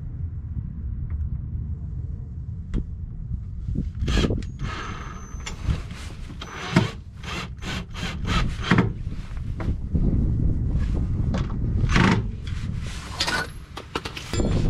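Hand tools scraping, clicking and knocking on metal as a muffler bracket is fastened with screws and bolts, in an irregular run that starts about four seconds in, over a steady low rumble.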